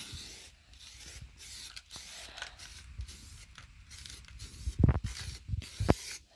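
Aerosol spray can of rust-protection primer hissing in a series of short bursts as a first coat is dusted onto a steel wheel, with a couple of dull thumps near the end.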